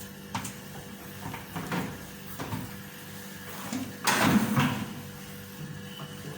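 Scattered clicks and scrapes of hard equipment being handled, with a louder knock and scrape about four seconds in, over a faint steady hum.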